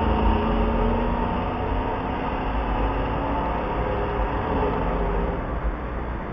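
Car with an illegally modified loud exhaust driving off out of sight, its engine note slowly fading over a deep low rumble.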